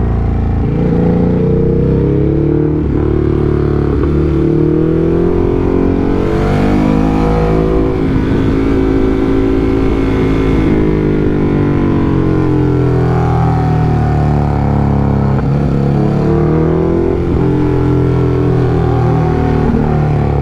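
Ducati Hypermotard's engine on the move, its pitch rising and falling as the throttle is opened and rolled off through a run of corners, over a steady rush of wind. The biggest climb in revs comes about six seconds in, dropping back around eleven seconds, with further rises near the end.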